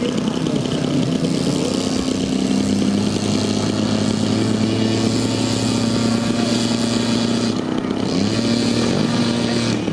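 Small gasoline engine of a radio-controlled model airplane running at a steady pitch, with a short drop and rise in pitch near the end as the throttle changes.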